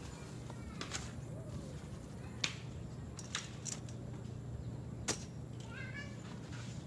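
Folding camp chair being pulled open and set up: several sharp clicks and snaps of its metal frame and joints, the loudest about a second in, two and a half seconds in, and five seconds in. Near the end, a short animal call that rises and falls in pitch.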